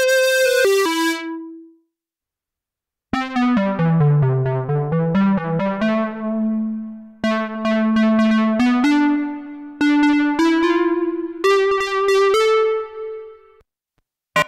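Cherry Audio Octave Cat software synthesizer, an emulation of the 1976 Octave CAT duophonic synth, playing a brass-bank preset. A held note fades out, and after about a second's pause a phrase of low notes steps down and back up. Then a slow run of held notes climbs in pitch.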